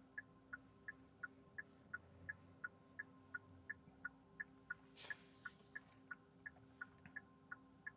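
Car turn-signal indicator ticking steadily inside the cabin, an even alternating tick-tock at about three clicks a second. There is a brief hiss of noise about five seconds in.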